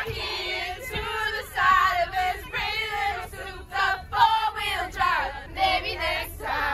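A group of teenage choir students singing loudly together in unison aboard a bus, voices wavering and overlapping, with the bus's low rumble underneath.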